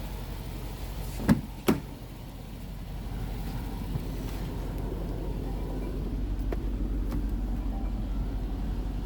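Range Rover engine idling steadily, with two sharp knocks in quick succession about a second and a half in.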